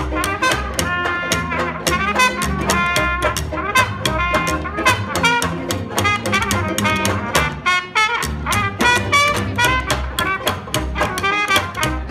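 Acoustic traditional jazz street band playing an instrumental passage: a trumpet leads over a walking upright bass, with banjo and guitar strumming a steady beat and a saxophone alongside.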